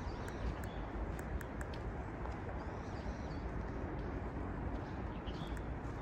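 Small birds giving a few short, high chirping calls, over a steady low background rumble, with light footstep clicks on the trail now and then.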